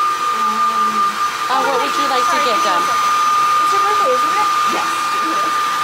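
Hair dryer running steadily with a constant high whine.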